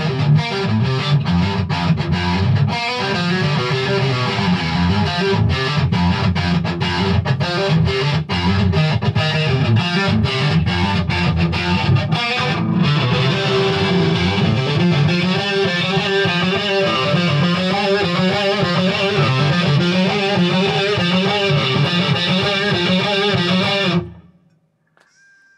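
Ibanez JEM 70V electric guitar playing a distorted lead part over a full backing track. The music stops abruptly near the end.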